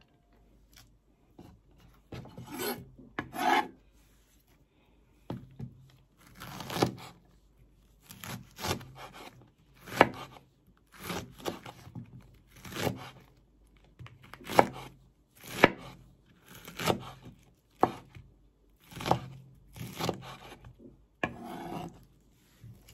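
Kitchen knife slicing a raw banana blossom thinly on a chopping board, with about one slice a second. Each stroke is a short scraping cut that ends on the board.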